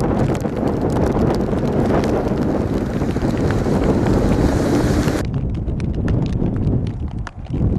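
Antonov An-124's turbofan engines rumbling as the jet comes in to land, with gusty wind buffeting the microphone. The high hiss thins out abruptly about five seconds in.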